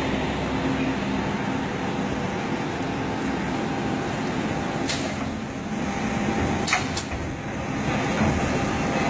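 Small spiral paper tube making machine running: a steady mechanical hum as its belt winds paper strips into a tube on the mandrel. A few sharp clicks come about five and seven seconds in.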